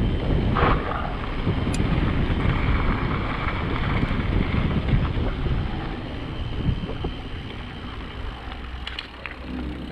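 Riding wind buffeting the GoPro's microphone as an enduro mountain bike rolls down the trail, with scattered clicks and knocks from the bike. It eases off over the last few seconds as the bike slows.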